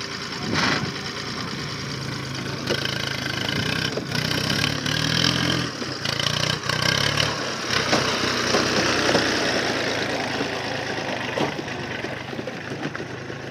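Swaraj tractor diesel engine running, its pitch rising for a few seconds in the middle before settling back.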